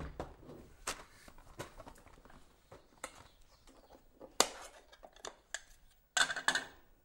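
Plastic body of a cylinder vacuum cleaner being handled to reach its underside filter: scattered clicks and knocks, a sharp click about four and a half seconds in, and a brief rustling scrape near the end.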